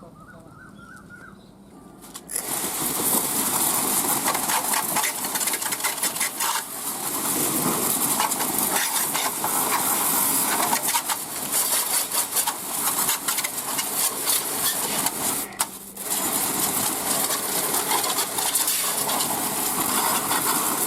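High-pressure washer jet spraying water onto a bare motorcycle frame: a loud, spattering hiss starts about two seconds in and runs on, cutting out once for a moment near three-quarters through before starting again.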